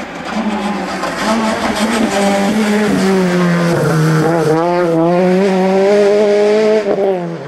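Peugeot 208 rally car's engine running hard at high revs as the car passes. The note holds high, dips about four seconds in and wavers briefly, then holds again before falling away near the end.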